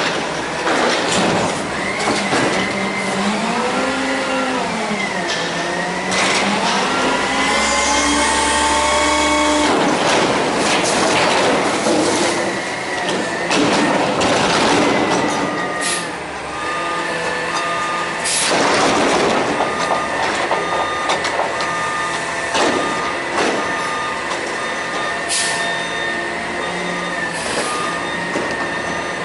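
A CCC Amrep front-loader garbage truck hoists a steel dumpster over its cab on hydraulic forks and dumps it into the hopper. In the first several seconds the engine and hydraulic pump whine, gliding up and down in pitch. Through the middle the steel bin clanks and bangs as it empties and is brought back down, and a regular beeping runs through the second half.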